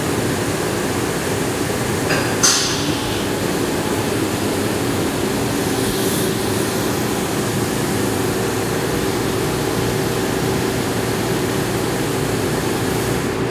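CNC machining center running under flood coolant, a steady splashing hiss and machine hum, as it taps a set-screw hole. There is a short sharp click about two and a half seconds in, and the hum grows stronger about halfway through.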